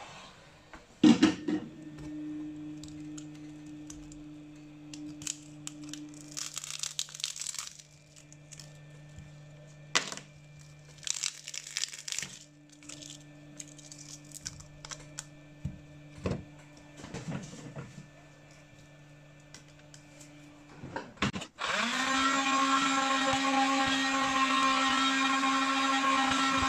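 Light clicks and scraping of hand work on a phone over a low steady hum. About twenty seconds in, a small electric motor tool starts and runs steadily and loudly.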